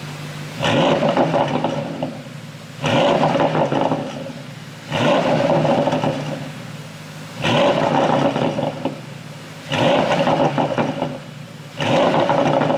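Porsche Panamera GTS twin-turbo V8 exhaust, revved in repeated throttle blips. It does this six times, about every two seconds, each time jumping up sharply in pitch and loudness and then falling back toward idle.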